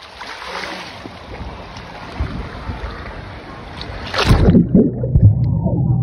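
Pool water splashing and churning. About four seconds in comes a loud splash as the microphone goes under the water, and the sound turns muffled and dull, with bubbling and a steady low hum.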